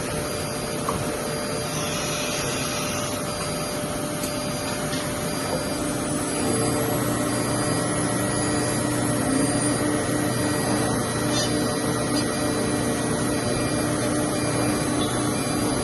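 ATC CNC wood router running under test: steady machine noise and hum. About six seconds in the hum gets a little louder and a faint high whine rises, then holds steady.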